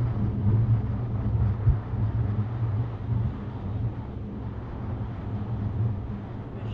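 Wind rumbling on the microphone over the wash of surf breaking on a beach, with one brief thump just under two seconds in.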